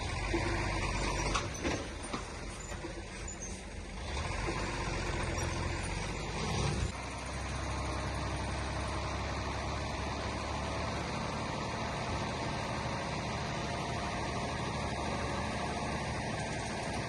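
Heavy diesel construction machinery running, with a deep steady engine rumble and a rougher, louder stretch that cuts off sharply about seven seconds in before settling into an even drone.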